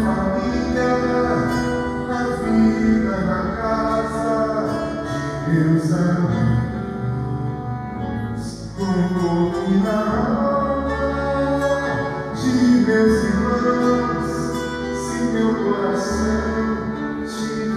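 Live acoustic trio of accordion, acoustic guitar and bass playing an instrumental passage of a gentle Brazilian gospel song, with sustained accordion notes over strummed and plucked guitar.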